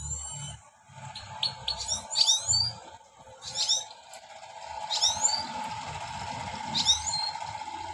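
European goldfinch singing: short, quick twittering phrases repeated about every one and a half seconds, with a steady hum underneath.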